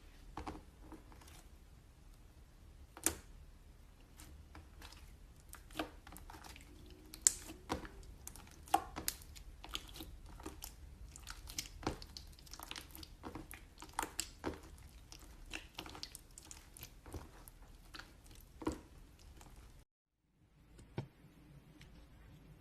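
Slime being squeezed and poked by hand, giving irregular sticky clicks and pops. The sound cuts out for a moment near the end, then resumes.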